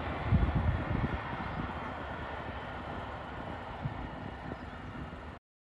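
Wind buffeting the microphone in gusts over a steady distant rush of airport background noise. The sound cuts off abruptly near the end.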